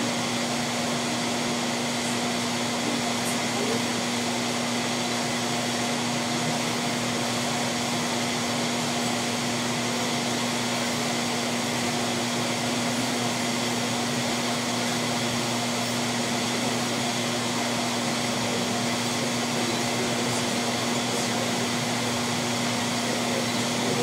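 Microwave oven running: a steady hum with the rushing noise of its cooling fan, unchanged throughout.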